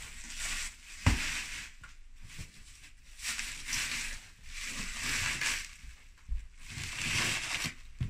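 Plastic shrink wrap being pulled and torn off a cardboard box, crackling and rustling in repeated surges, with a single thump about a second in.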